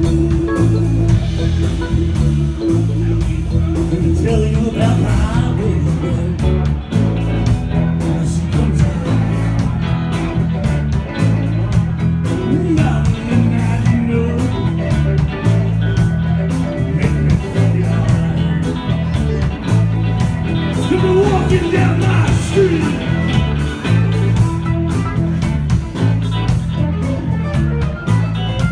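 Band playing blues-rock: electric guitar over a driving bass line with a steady beat, at times with singing.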